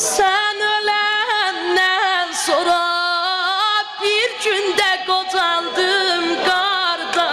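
A boy singing an unaccompanied Azerbaijani mourning lament for Zeynab (a Shia noha), holding long notes that waver and turn in ornaments, broken by short pauses for breath.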